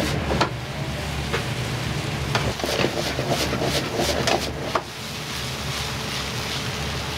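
Wok cooking in a restaurant kitchen: a steady low rumble of the burner or extractor under sizzling, with sharp metal clinks of a ladle against the wok, several close together in the middle.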